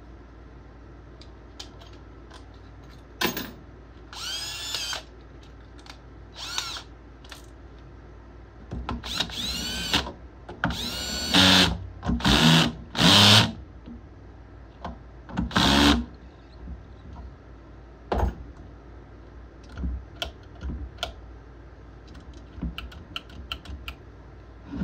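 Power drill-driver running in about eight short bursts, its whine rising and falling in pitch with each squeeze of the trigger, a quick run of them in the middle. Light clicks and knocks of handled parts and tools follow in the last third.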